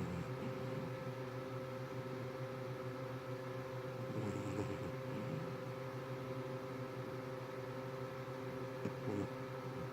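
Snoring in sleep: three snoring breaths, about four to five seconds apart, over a steady electrical hum.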